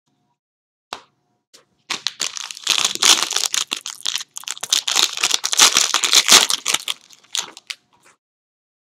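Card-box packaging crinkling and tearing as it is opened. There are a couple of isolated clicks first, then dense crackling from about two seconds in until about seven seconds.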